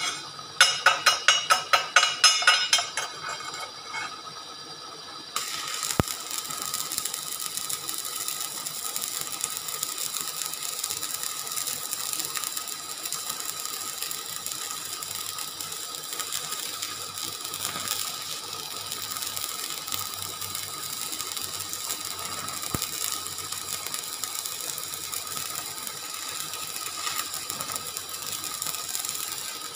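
Stick welding arc crackling and sizzling steadily as the electrode welds a small steel nipple onto a steel pipe saddle. The crackle starts about five seconds in, after a rapid run of sharp taps, about five a second, in the first three seconds.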